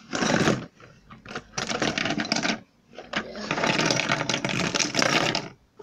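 A pile of fidget spinners rattling and clattering as they are tipped out of a cardboard tissue box onto a table. It comes in three bursts, the last and longest lasting about two seconds.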